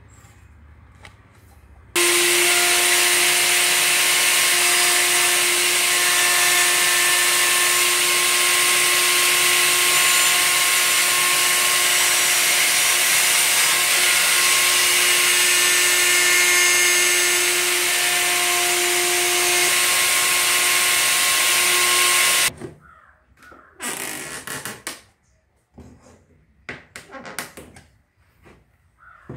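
Table-mounted router running at speed with a bearing-guided flush-trim bit while a plywood piece is fed around it to trim its edge: a loud, steady high whine. It starts suddenly about two seconds in and cuts off suddenly about twenty-two seconds in, followed by light knocks of the wood being handled on the bench.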